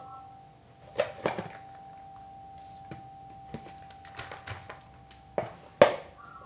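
Kitchen knife chopping long beans on a small wooden cutting board: irregular sharp knocks of the blade on the wood, the loudest two near the end.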